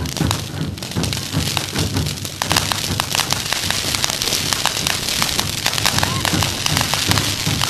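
Pyrotechnic fountains and crackle effects fizzing with a dense, rapid crackle that becomes louder about two and a half seconds in.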